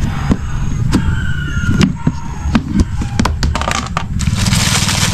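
Sharp clicks and knocks from a plastic storage box's lid being unlatched and lifted off. From about four seconds in, the plastic bags inside rustle steadily as they are handled.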